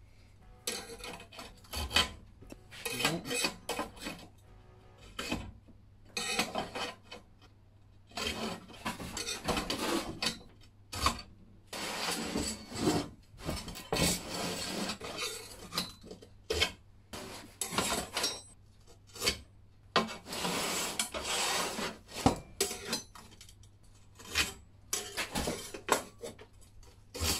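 A steel scriber scratching marking lines into 4 mm steel sheet along a steel rule, in repeated short scraping strokes. Occasional sharp metal-on-metal clicks come as the rule and scriber are shifted on the sheet.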